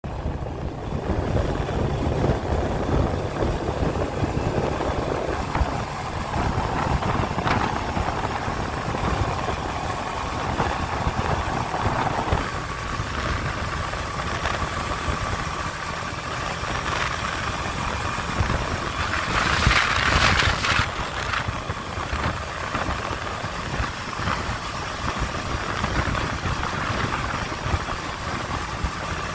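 Honda CB500F parallel-twin engine running at high road speed, with heavy wind rush over the microphone. The engine note climbs for several seconds as the bike gathers speed, then holds steady. About two-thirds of the way through comes a brief, louder rush of noise.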